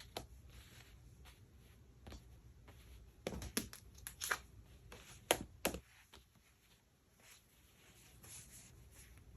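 Tarot cards being handled on a table: faint rustling with a few sharp taps and clicks, bunched together from about three to six seconds in.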